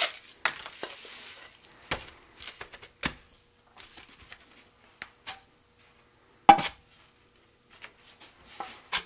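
Rocket coupler tube being handled and test-fitted into the nose cone on a workbench: scattered light knocks and brief rubs with quiet gaps. The loudest is a single sharp knock about six and a half seconds in.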